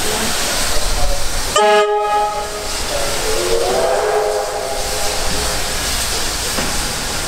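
Heritage trains departing: a steady hiss of steam with a short whistle blast about one and a half seconds in, then a tone that rises and holds for a second or two as the train pulls away.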